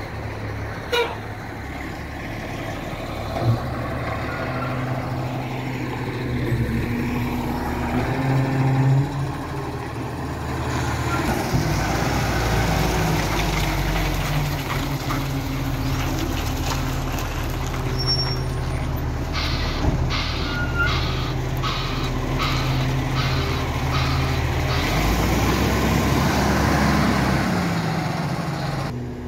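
Diesel garbage truck engines running steadily, the engine note rising near the end. A few sharp knocks come early on. About two-thirds of the way through there is a run of short, evenly spaced high-pitched pulses, roughly two a second.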